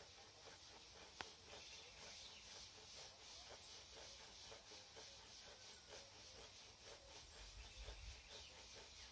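Hand saw cutting through very hard orange-tree wood, faint rasping strokes in a quick, even rhythm, with one sharp click about a second in.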